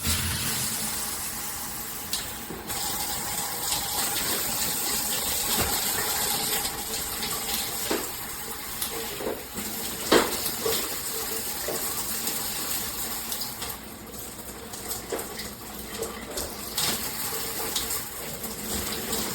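Water spraying steadily from a handheld shower head, with a few knocks, the loudest about ten seconds in.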